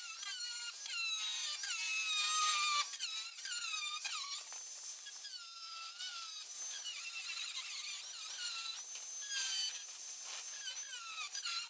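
A marker squeaking on bare sheet metal in short strokes, each a high squeak sliding in pitch, as it traces the outline of a paper template onto 18-gauge steel for a patch panel.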